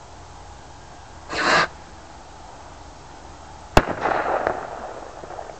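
Firework rocket fired from an RC model plane: a short rushing hiss about a second in, then a single sharp bang about two seconds later with a crackling tail that fades out.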